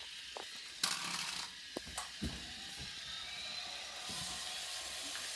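Small battery-powered toy train running along its plastic track, a steady faint mechanical hum with a few light clicks and knocks, the loudest about a second in.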